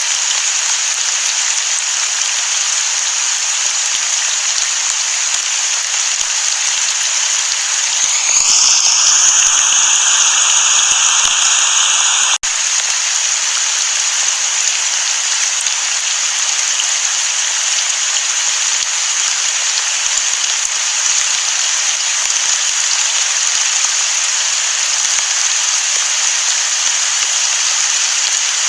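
Steady rain hiss, with no thunder. It grows a little louder from about eight seconds in, then breaks off sharply about four seconds later and goes on as before.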